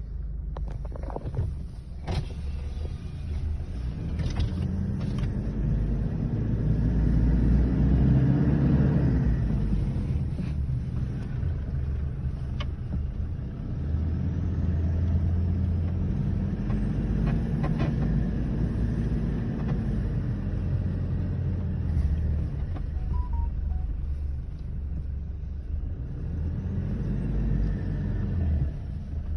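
Toyota off-road vehicle's engine running under load on sand, with a steady low rumble; the revs rise and ease off several times. A few sharp knocks come in the first few seconds.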